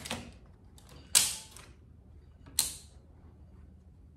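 Circuit breakers on a training panel being switched by hand: three sharp mechanical clicks a little over a second apart, the second the loudest.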